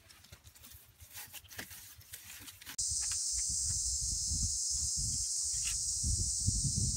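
Faint rustling and light clicks of hands working bamboo and sticks, then, cutting in abruptly about three seconds in, a loud, steady, high insect drone of cicadas over the low buffeting of wind on the microphone.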